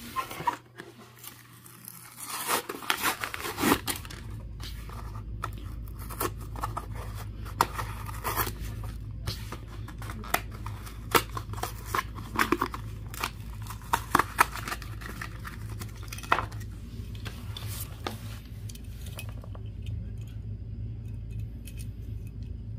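Plastic blister pack and cardboard backing card of a diecast toy car being pulled and torn open by hand: irregular crackling, tearing and sharp snapping clicks that ease off near the end. A steady low hum runs underneath from a few seconds in.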